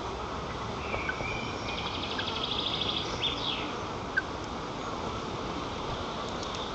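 Strong wind rushing through the treetop and over the nest camera's microphone, a steady noise with no pauses. About two seconds in comes a brief high trill that ends in a quick falling sweep.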